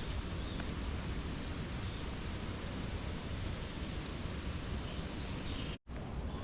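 Steady rushing outdoor background noise, heaviest in the low end, with no distinct events; it drops out completely for a split second near the end.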